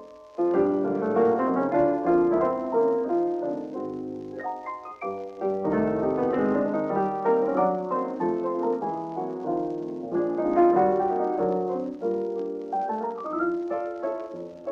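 Two pianos with string bass and drums playing a 1930s dance tune, heard from a 1939 Parlophone 78 rpm shellac record. The pianos play busy runs and chords, and the music drops out briefly at the start before coming back in.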